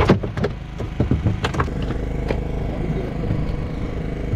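A fishing boat's engine running steadily, with a few sharp knocks in the first two seconds or so.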